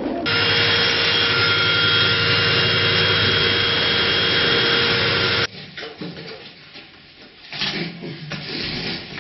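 Rig-mounted diamond core drill wet-cutting through a concrete floor, a steady grinding with a few held tones. It cuts off suddenly about five and a half seconds in, followed by quieter knocks and scraping.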